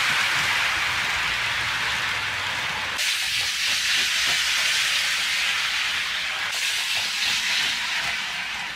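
HO scale model trains running on track: a steady whirring hiss of wheels and small motors, broken by two abrupt changes in tone.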